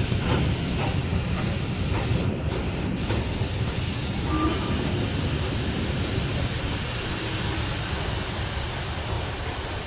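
Steam-hauled train running steadily, heard from a carriage window: a continuous rumble with a hiss over it.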